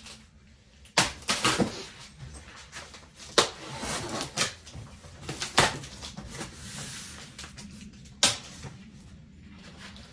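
Cardboard shipping box being handled and opened: scattered sharp knocks and thumps of cardboard, with a longer soft scraping stretch in the middle.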